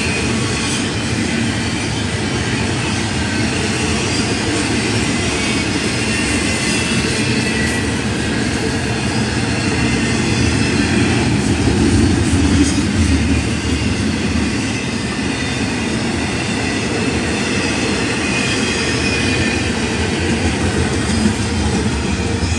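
Double-stack intermodal container train rolling past: a steady rumble and clatter of well-car wheels on the rails, with faint wheel squeal, a little louder about halfway through.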